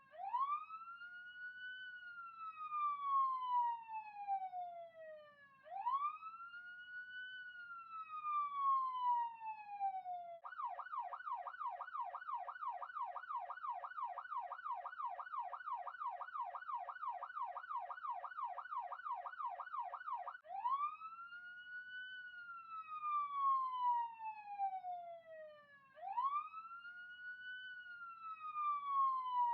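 Police siren sounding a wail, each cycle rising quickly and falling slowly over about five seconds. About ten seconds in it switches to a fast yelp of about three sweeps a second for some ten seconds, then goes back to the wail.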